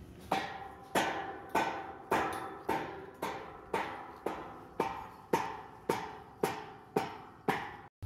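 Hand hammer striking in a steady rhythm, just under two blows a second, fourteen blows in all, each ringing briefly after the hit.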